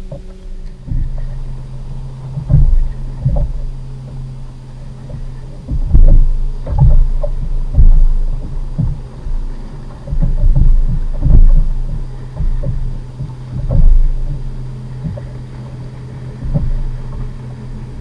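Small waves slapping and knocking against a kayak's plastic hull in uneven low bumps, over a steady low hum.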